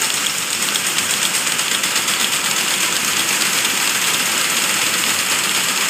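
Automatic glove knitting machine running: a steady, fast mechanical clatter of needles and carriage with a hiss.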